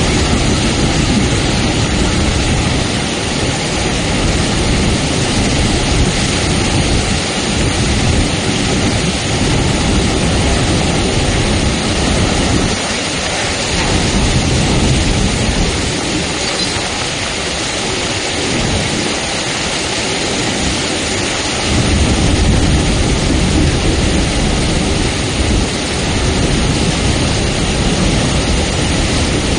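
Heavy monsoon rain falling: a loud, steady hiss with a low rumble underneath that swells and fades.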